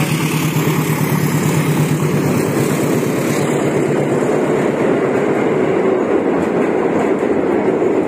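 PNR passenger train running across a steel truss railway bridge: a steady, loud noise of wheels on rails.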